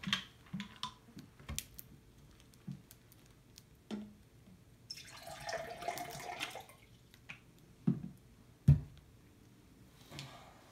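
Water poured from a plastic bottle into a cup for about two seconds midway, the pitch of the pour rising as it fills. Before it, light clicks and knocks of plastic lids and containers; near the end, two thuds of things set down on the table, the second the loudest.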